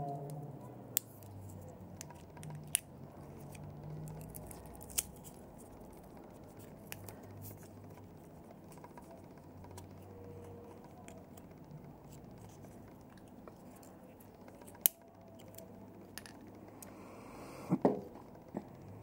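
Scattered sharp clicks and light scraping of small parts and tools being handled as a GLO Hyper X2 heated tobacco device is taken apart, with a louder click about 15 seconds in and a short cluster of clicks near the end.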